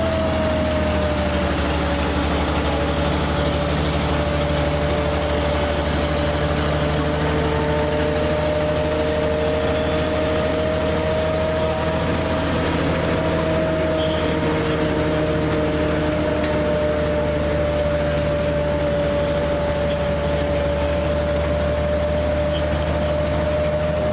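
Panzer IV Ausf. H tank's engine running steadily as the tank drives slowly on its tracks: a deep low drone with a steady whine above it.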